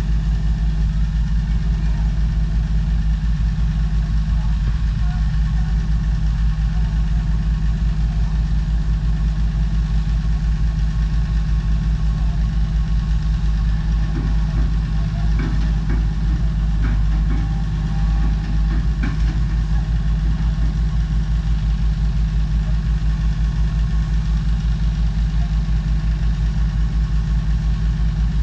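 Excavator's engine running steadily close by, an even low throb. A few short knocks and clatters come through around the middle.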